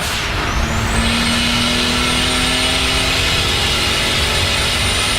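Turbocharged BMW 535i E34's 3.8-litre M30 straight-six at sustained full throttle, with a high turbo whistle that rises over the first half-second and then holds steady over the engine noise.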